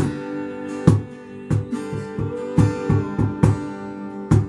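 A worship band playing an instrumental passage between sung lines: acoustic guitar strumming over held chords, with regular beats.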